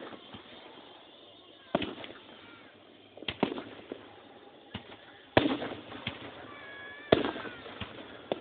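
Aerial fireworks bursting, heard through a phone microphone: about seven sharp booms spaced irregularly a second or two apart, each with a crackling, echoing tail. The loudest two come about five and seven seconds in.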